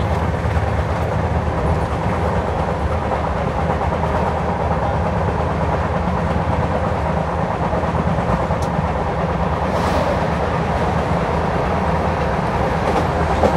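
Indian Railways LHB coach running at speed: a steady rumble of wheels on rail, with some clickety-clack over the track.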